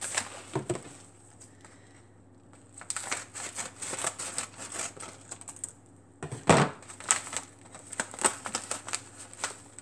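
A paper seasoning packet being cut open with kitchen scissors and handled, with crisp clicking and crinkling, and a single louder thump about two-thirds of the way through.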